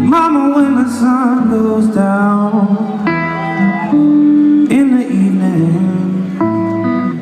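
Slow blues guitar played live: sustained notes bent and shaken with vibrato over a low bass line.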